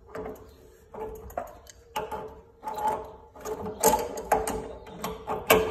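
Adjustable wrench clicking and scraping on a brass water-heater fitting as it is tightened, in about nine irregular strokes as the wrench is turned and reset on the nut.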